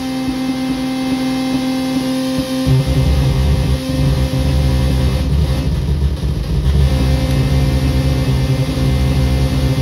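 Circuit-bent Meowsic cat toy keyboard giving out a steady electronic drone: held tones over a low buzzing bass that drops out and comes back several times.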